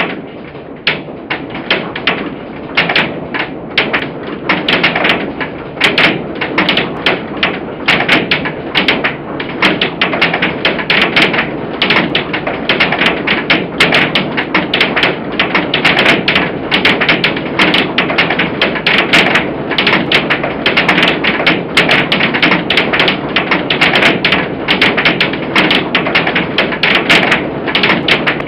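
Hailstorm: a dense, rapid clatter of hailstones striking over a steady rushing noise of wind-driven hail and rain, building over the first few seconds and then holding loud.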